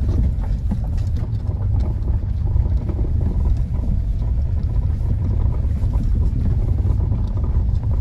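Motorcycle riding along a rough off-road track: a steady low rumble of engine and wind buffeting the microphone.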